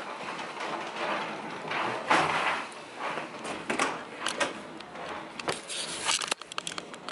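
Handling noise from a handheld camera being carried about: rustling with scattered clicks and knocks.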